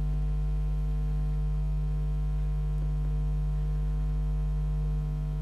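Steady electrical mains hum with a ladder of overtones and no other sound.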